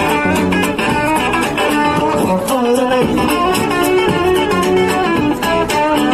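Electric guitar played through an amplifier: a street musician's upbeat song with a steady beat.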